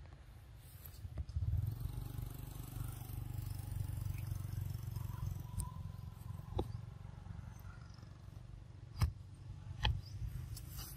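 Outdoor ambience: a steady low rumble, with a few sharp clicks, two of them louder near the end.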